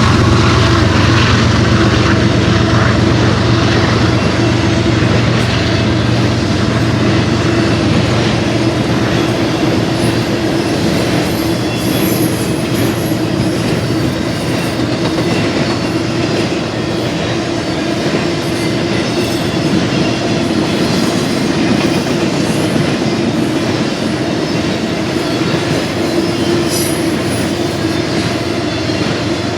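Freight cars of a long intermodal train rolling past, a steady loud rumble of steel wheels on rail with clickety-clack and a held ringing tone from the wheels. A low drone at the start fades over the first few seconds.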